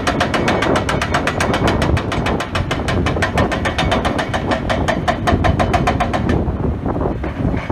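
Hydraulic breaker on a Hidromek excavator hammering hard rock in rapid, even blows, about ten a second, over the excavator's diesel engine running. The hammering stops about six seconds in, leaving the engine.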